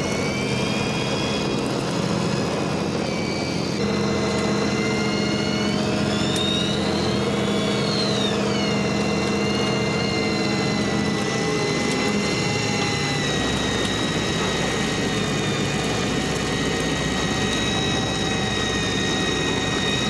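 Electric deep-sea fishing reel's motor whining as it winds in line, its pitch rising and falling back about six to nine seconds in, over the steady drone of the boat's engine.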